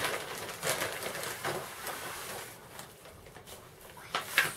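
Clear plastic bag rustling and crinkling as hands dig into it, in a few louder handfuls, the last and loudest near the end.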